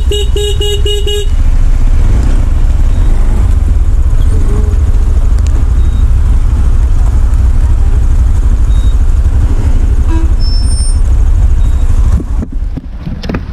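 Vehicle horn sounding a quick run of about five short toots at the start, then a steady low rumble of traffic.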